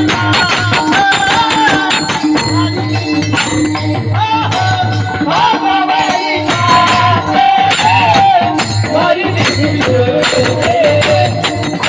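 Devotional kirtan music with no words: hand cymbals jingling fast and steadily over a regular drum beat, with a wavering melody line above.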